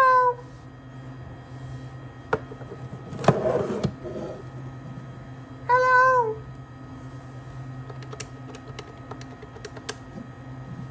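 Two short, squeaky, meow-like vocal calls, one at the start and one about six seconds in, interleaved with clatter and clicks of the desk phone's handset and buttons being handled. The handset is knocked off its hook.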